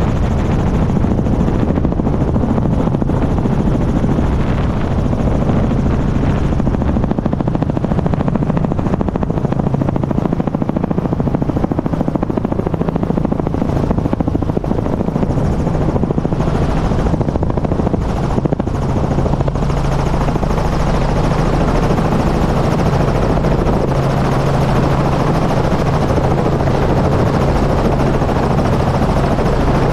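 Small helicopter running on the ground, its engine and rotor heard up close from a camera mounted on the airframe. A steady, loud hum with a low droning tone that grows stronger about two-thirds of the way through.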